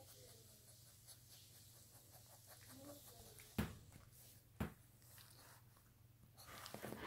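Rottweiler puppy mouthing and chewing quietly: near silence with two sharp clicks about a second apart and a soft rustle near the end.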